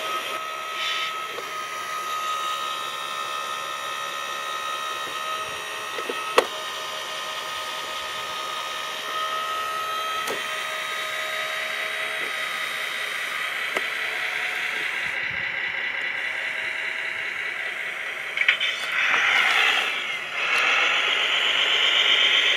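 Electric motors and gearing of a radio-controlled model tipper truck whining steadily, with a sharp click about six seconds in. The whirring grows louder and rougher near the end.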